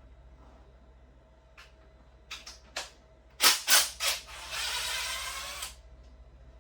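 Metal tools and parts being handled on an engine under teardown: a few light clicks, then two sharp metallic knocks, followed by about a second and a half of hissing.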